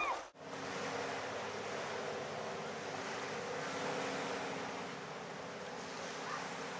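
The sound cuts off abruptly a fraction of a second in. After that comes steady seashore ambience: an even wash of wind and water noise with a faint, steady low hum underneath.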